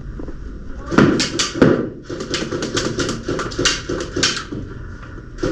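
Airsoft gunfire: fast strings of sharp clacks in a small room, with a loud cluster about a second in and another quick run from about two to four and a half seconds in.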